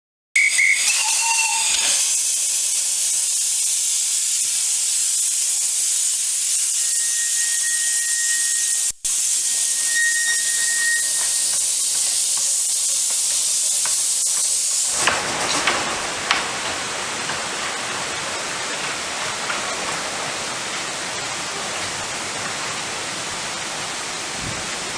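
Loud, steady steam hissing from a narrow-gauge 0-4-0 steam locomotive as it moves off, with steam escaping low around its wheels and a faint thin whistling tone in the middle. At about 15 seconds the hiss gives way to a quieter, rougher noise with a few clicks.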